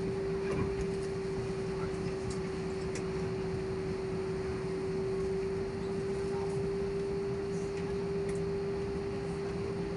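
Airliner cabin air-conditioning noise, a steady even hiss, with a single steady humming tone held unchanged throughout.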